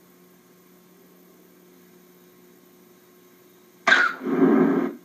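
Faint steady electrical hum, then about four seconds in a single cough: a sharp start followed by a rougher, lower part lasting about a second.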